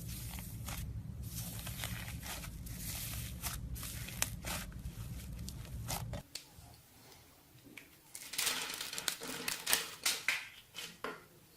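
Slime being squeezed and pulled by hand, making sticky crackling and popping clicks. A low hum lies under the first half and stops suddenly about six seconds in. After a short quieter stretch comes a denser run of crackles.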